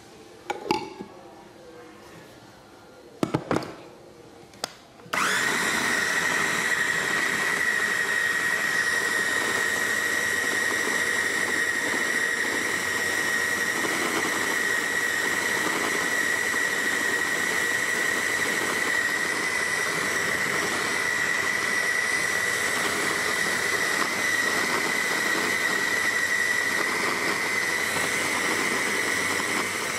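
Electric blender whipping thick honey. A few short knocks come first, then about five seconds in the motor switches on and runs steadily with a high whine.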